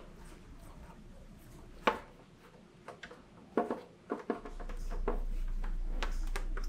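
Handling noise from a plastic motorcycle helmet shell being wiped and turned while decals are smoothed on: a sharp click about two seconds in, then a few light knocks and rubbing. A low steady hum comes in past the middle.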